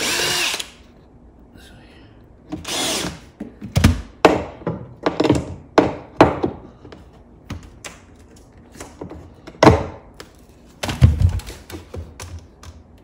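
Cordless drill running in short spurts, backing screws out of a pine board, once at the start and again about three seconds in. This is followed by a string of sharp wooden knocks and clatters as a metal pry bar levers the board and tools are handled.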